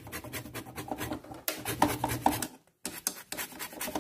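Orange peel rubbed hard against a small metal hand grater, grating zest: rapid rasping scrapes, with a short pause about two and a half seconds in.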